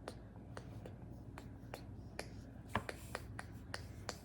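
A quick, irregular run of light, sharp clicks or taps, about three or four a second.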